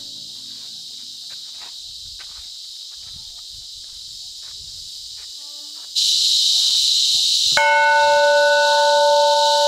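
Insects buzzing steadily, louder from about six seconds in. Near the end a hanging metal bell is struck once and rings on with a clear, steady tone.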